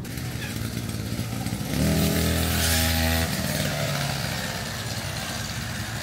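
Engine of a brush cutter used for grass-cutting, running steadily; about two seconds in it gets louder with a steady engine note for a second and a half, then eases back to a lower level.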